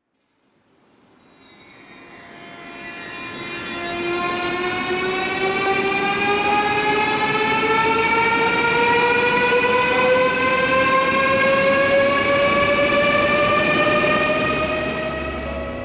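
An ICE high-speed electric train pulling away from the platform. Its electric drive gives a whine of several tones that rises steadily in pitch as the train gathers speed, over the rumble of the wheels on the rails. The sound fades in over the first few seconds.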